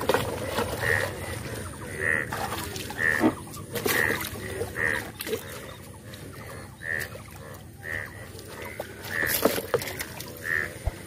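Splashing and rustling of hands working catfish out of a net in shallow water, with irregular knocks. A short high animal call repeats about once a second in the background.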